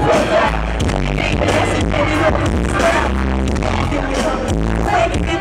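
Live pop/hip-hop band performing a song, with singing over a heavy bass and a steady drum beat. It is recorded from the audience with terrible sound quality.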